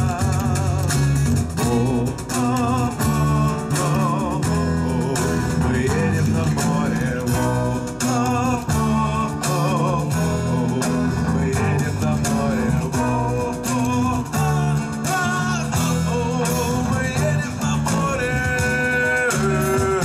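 Live band music: acoustic and electric guitars playing a song over a steady bass line, with a wavering melody line carried by voice or lead guitar and a long held note near the end.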